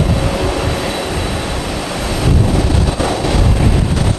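Rolls-Royce Trent 7000 turbofans of an Airbus A330-900 running as the jet begins its take-off roll: a loud, uneven low rumble with a steady whine above it.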